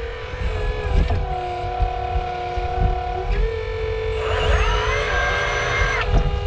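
1/8 scale 385CF RC hydraulic excavator running, its pump and motors whining steadily; the whine shifts pitch about a second in and again past the middle, rising near the end as the load on the hydraulics changes. A low rumble runs underneath.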